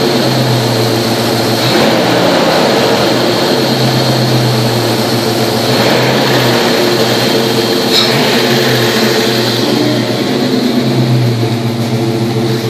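Jeep Grand Cherokee 5.2-litre V8 running steadily at a constant speed, heard from over the open engine bay.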